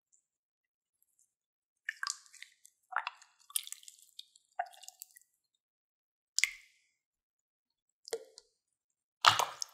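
Slime being squeezed and stretched by hand, making short wet squishes and squelches. They start about two seconds in, come in a quick cluster, then singly, with the loudest squelch near the end.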